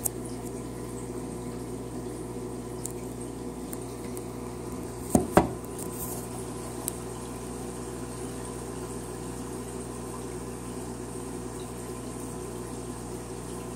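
Aquarium filtration running steadily: a constant wash of water and bubbling with a low hum beneath it. About five seconds in come two sharp knocks in quick succession, with a few fainter ticks around them.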